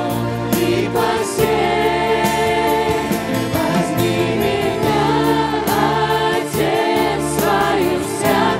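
Christian worship song sung in harmony by a group of mixed voices, backed by keyboard and electric bass guitar, with a steady beat.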